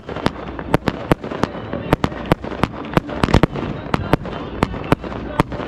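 Fireworks display: an irregular rapid run of sharp bangs and cracks, about three a second, over a steady rushing noise.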